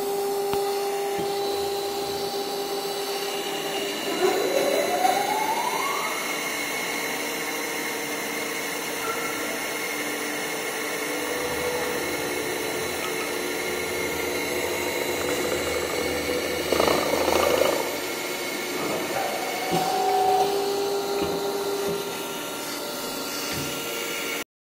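Automatic belt sanding and grinding machines running, abrasive belts grinding metal pot bodies over a steady motor hum. A whine rises in pitch about four to six seconds in, and the grinding noise grows louder in spells about 17 and 20 seconds in.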